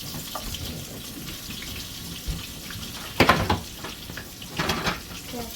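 Breaded rabbit pieces frying in hot oil: a steady sizzle, with two louder surges about three and four and a half seconds in.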